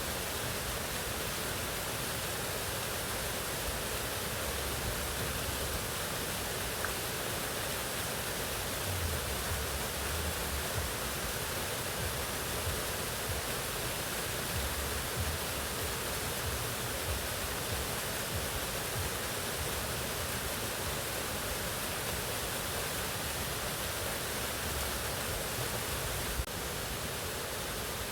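Waterfall rushing: a steady, unbroken wash of falling water with a low rumble under it.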